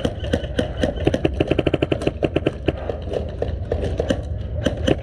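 Airsoft guns firing in quick full-auto bursts, each shot a sharp crack. There is one fast, even burst in the middle, with scattered shots before and after it.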